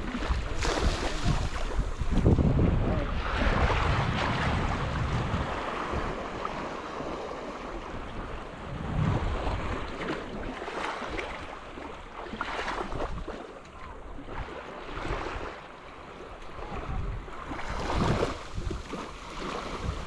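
Surf breaking and washing up a sandy beach, rising and falling in swells every few seconds, with wind buffeting the microphone.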